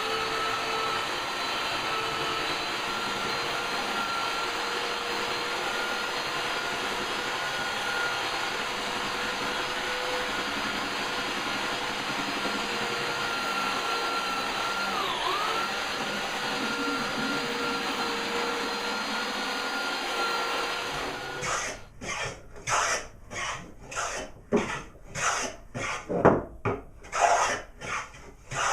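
A power tool's motor runs steadily with a hissing noise, dipping briefly in pitch about fifteen seconds in, and stops a little after twenty seconds. Rhythmic rubbing strokes on wood follow, about one and a half a second, like hand sanding or filing.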